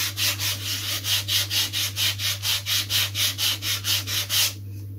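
Sanding block rubbed back and forth along the edge of a foam model-plane fuselage, about four quick strokes a second, stopping near the end. The foam is being sanded down where it stands proud of the finished level.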